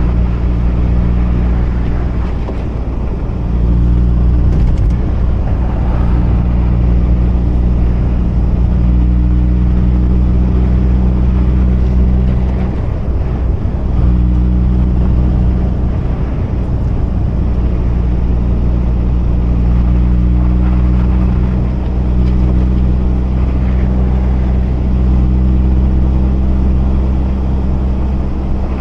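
Mazda RX-8's rotary engine running steadily under way, a low drone that drops out briefly twice, about three seconds in and again around thirteen seconds.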